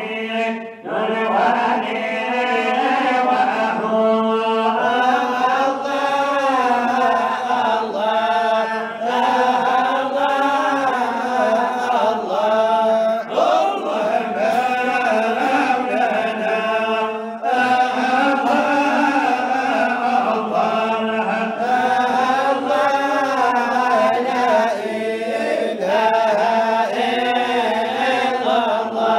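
Unaccompanied male chanting of a Sufi samaa devotional ode into a microphone, with long, wavering sung lines.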